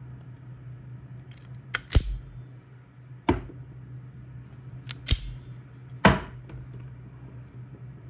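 Hand wire strippers snapping as they strip insulation off the ends of power-cord wires: four sharp snaps a second or so apart, two of them doubled, over a steady low hum.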